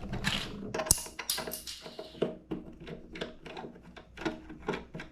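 Light clicks and taps of small metal and plastic parts being handled while a wheel is taken off and put on an RC plane's landing-gear axle with a hex key. There is one sharp click about a second in, then a quick, uneven run of lighter ticks.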